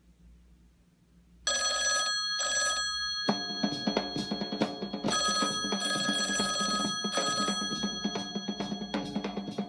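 A telephone rings in short repeated bursts, starting about a second and a half in. About three seconds in, music with a steady drum beat comes in over the ringing.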